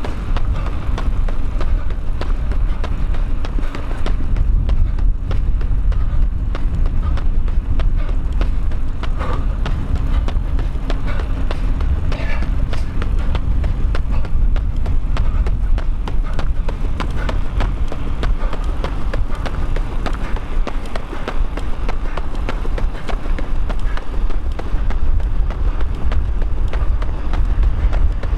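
A runner's footfalls at a steady running pace, with a constant low rumble of wind on the microphone.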